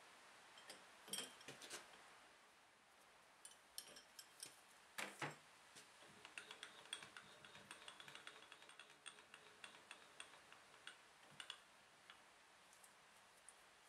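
Faint metallic clicks and taps as a normal end mill is fitted into a small milling machine's collet chuck, followed by a run of quick, light ticks; the spindle is not running.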